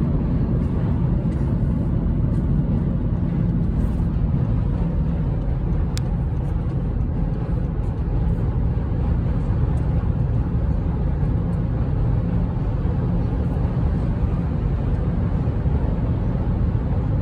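Steady low road noise inside a car's cabin cruising at highway speed.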